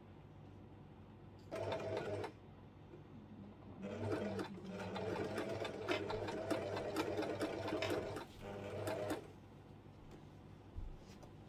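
Singer electric sewing machine stitching a hem through thick folded fabric in three runs: a short burst, a longer run of about four seconds, then a brief one, with a single click near the end.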